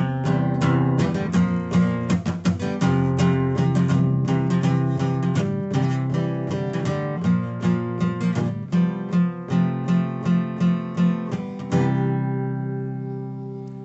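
Acoustic guitar strumming a steady rhythm as the song's instrumental ending, with a final chord about twelve seconds in that is left to ring and fade out.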